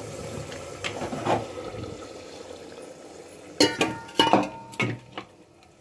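Aluminium cooking pot and steel plate being handled on a stone counter: a low steady background hum at first, then several sharp metallic clinks and knocks with a short ring, a little past halfway.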